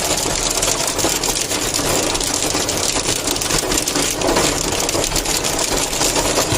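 Hailstones pelting a hard surface in a dense, rapid clatter of countless small impacts.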